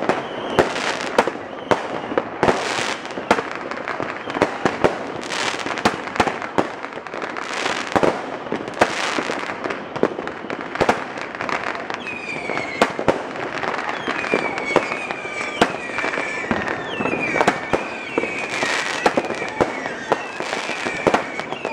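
Fireworks going off overhead in a rapid series of bangs and crackles. From about halfway, high whistling tones with a slightly falling pitch join the bangs.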